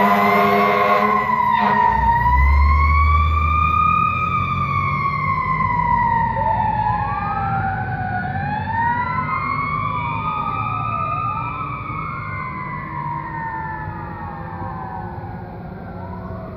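Fire engine's wailing siren, slowly rising and falling, fading as the truck drives away. A horn sounds under it until about two seconds in.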